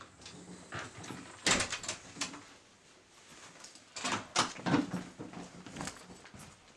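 A house's front door being opened and shut, with latch and handle clicks and knocks and a few footsteps. The loudest thump comes about a second and a half in, and a cluster of sharper clicks follows around four to five seconds in.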